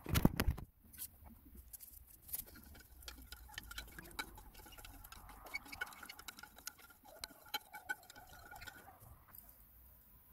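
A metal spoon stirring water in a glass bowl, clinking against the glass in quick, irregular ticks while the electrolyte is mixed in. A loud thump comes right at the start.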